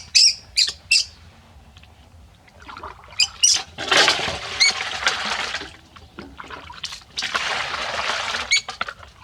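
Water poured twice from a scoop, each pour lasting about two seconds, with short high-pitched squeaks from a monkey at the start and over the pours.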